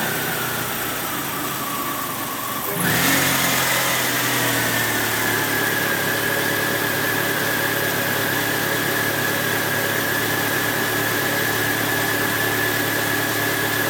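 Eagle Talon's engine running with its revs sagging for the first few seconds, then picking up sharply about three seconds in and settling into a steady idle. A high whine rises and falls with the engine speed.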